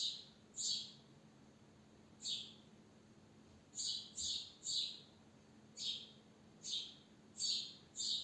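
Sparrow chirping: about ten short, high chirps, each sliding down in pitch, in an uneven series with some coming in quick twos and threes.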